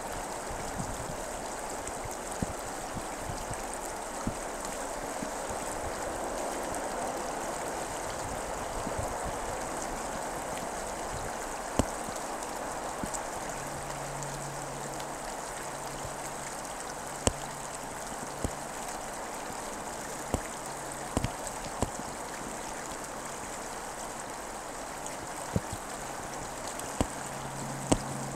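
Fast stream rapids running between ice edges: a steady rush of water, with scattered sharp ticks and splashes. A faint low hum comes and goes from about halfway through.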